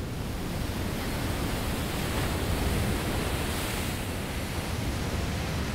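Wind and waves on a stormy open sea: a steady rush of wind over rough, breaking water, swelling slightly a couple of seconds in.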